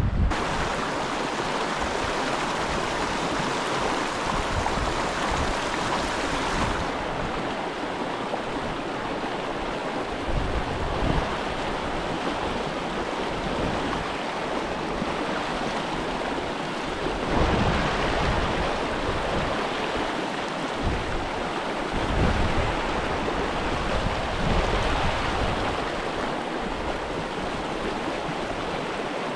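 Creek water running steadily, with a few low gusts of wind buffeting the microphone.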